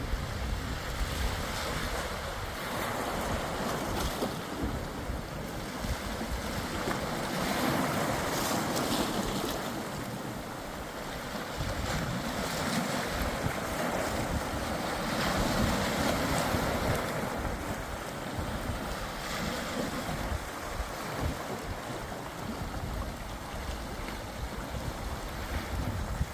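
Sea waves washing in slow swells, with wind buffeting the microphone.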